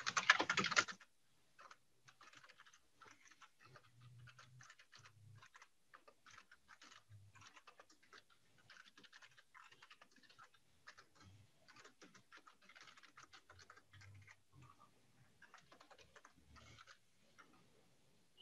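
Computer keyboard typing: faint, quick, irregular keystrokes.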